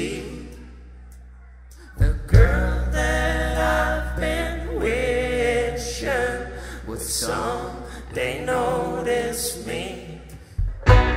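Live band song: male voices singing together over electric bass and guitar. After a quieter opening, the bass and fuller band come in about two seconds in.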